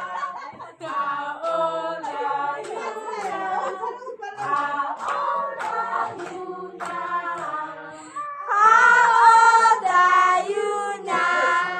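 Voices singing a song together, with held and gliding notes, swelling louder about two-thirds of the way through.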